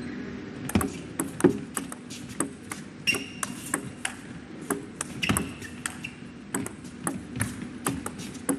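Table tennis rally: the ball clicks sharply off the rackets and the table, several hits a second and all of them short.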